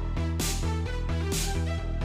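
Electronic background music with a steady pulsing bass beat and a cymbal-like swell about once a second.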